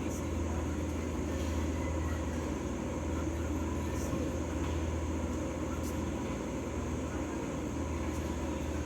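Steady low mechanical hum with a few faint ticks scattered through it.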